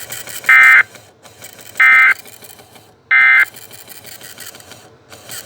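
An EAS encoder/decoder (TFT EAS 911 ENDEC) sends three short, identical bursts of warbling digital data tones, about a second and a half apart, with a low hiss between them. This is the Emergency Alert System end-of-message (EOM) code, which marks the end of the alert.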